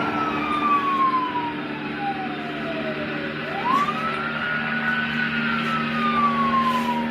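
A siren wailing twice, each cycle rising quickly and then sliding slowly down, over a steady hum.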